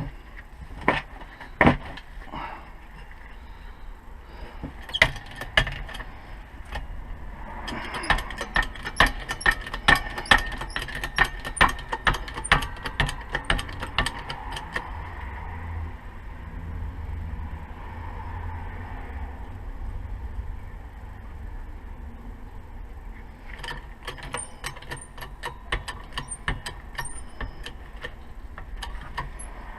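Sharp metal-on-metal knocks and clicks as a new front wheel bearing is driven into the hub carrier, with a quick run of them at about two a second about a quarter of the way in and another cluster near the end.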